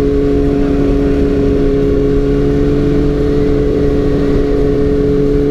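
Kawasaki ZX-6R 636's inline-four engine running at a steady, unchanging pitch while cruising, with wind rushing over the microphone.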